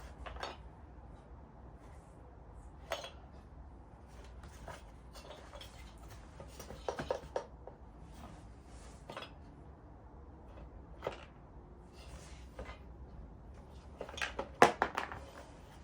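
Small hard parts from a diesel heater kit being handled: scattered clicks and clinks, with a quick run of louder clinks near the end.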